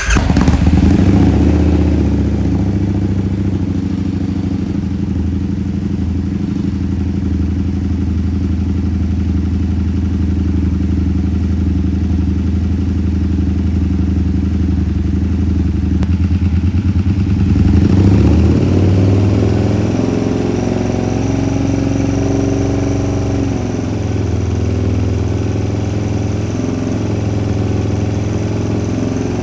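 1999 Excelsior-Henderson Super X V-twin motorcycle engine running just after starting, loud and steady, warming up on fresh oil. Its note shifts about 18 seconds in.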